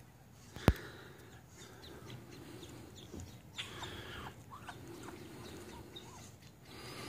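A brood of ducklings peeping while they feed: a loose scatter of short, high chirps that fall in pitch, thickest in the middle of the stretch. A single sharp tap a little under a second in is the loudest sound.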